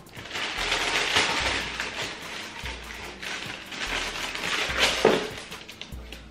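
Crinkly rustling and scraping of shoebox packaging and wrapping paper as a pair of sneakers is unpacked, swelling about a second in and again near the end.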